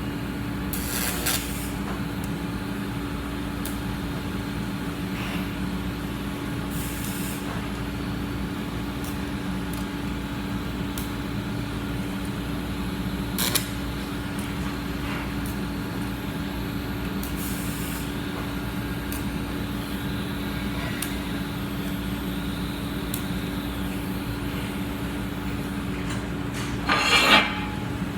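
Welding: a steady electric hum and hiss from the welder and arc, with a few brief clicks and taps, the loudest a short cluster near the end.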